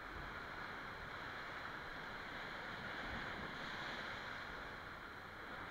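Steady wash of sea surf surging and breaking against the foot of the cliff below.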